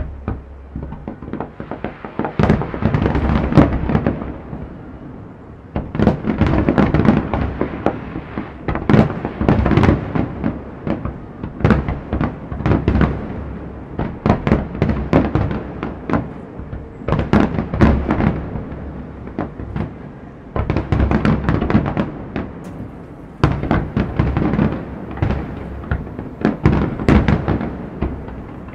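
Aerial fireworks bursting in rapid, overlapping bangs and crackles, coming in waves of heavier barrages.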